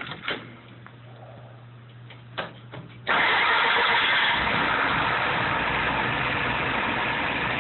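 Carbureted engine running on a freshly rebuilt Carter WO carburetor starts instantly about three seconds in, on a hot restart test with no cranking heard, and runs on steadily without stumbling, its level easing a little as it settles.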